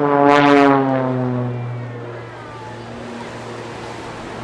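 Engine and propeller drone of a jet-assisted Pitts Special aerobatic biplane flying a display, its pitch dropping as it passes and moves away, and fading about two seconds in. A short rushing burst comes about half a second in.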